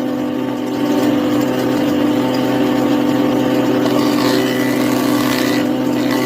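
Motor of a woodworking power tool running steadily with a constant, even hum.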